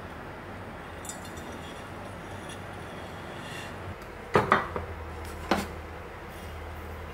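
Faint rustling, then two sharp glass clinks about a second apart as a glass storage jar full of dried spaghetti is handled and set down on the kitchen counter.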